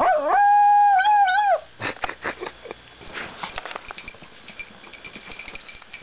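Small dog giving one long, howl-like call that wavers at its start and end and lasts about a second and a half.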